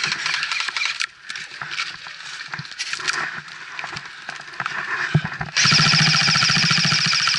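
Spruce branches and undergrowth rustling and snapping as the player pushes through. About five and a half seconds in, an electric airsoft rifle opens up on full auto in a long, loud, buzzing burst.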